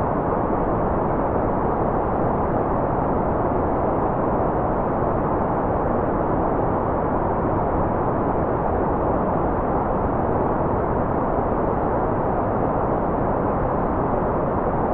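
Steady, unchanging white noise, rolled off at the top so it sounds like a dull, even rush with no high hiss.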